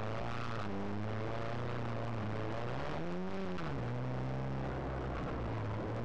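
Renault Clio S1400 rally car's four-cylinder engine under load, heard from inside the cabin, revs held fairly steady with a brief rise and fall in pitch about three seconds in.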